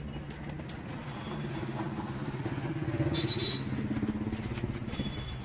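An engine running with a steady low hum that grows a little louder around the middle, with a few light clicks in the second half.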